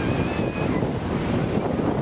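Steady rush of river water pouring over the overflow dam and through the rocks below it, with wind buffeting the microphone. A faint high-pitched call rises briefly at the start.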